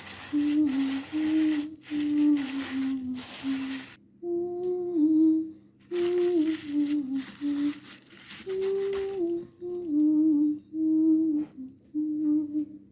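Background music: a hummed, wordless vocal melody in short phrases over a soft backing, ending abruptly near the end.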